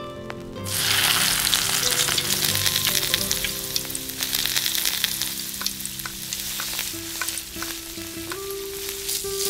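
Marinated prawns dropped into hot oil in a small steel kadai, starting to sizzle loudly about a second in, with crackling pops that carry on and ease off slightly.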